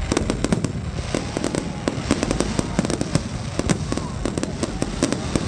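Aerial fireworks bursting in quick succession: a dense, steady crackle of sharp bangs and pops, several a second, with a few faint gliding whistles.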